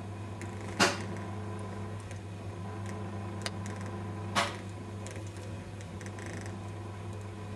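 Electric potter's wheel running with a steady low hum while a goblet is thrown, with two sharp knocks, one about a second in and one near the middle, and a lighter click between them.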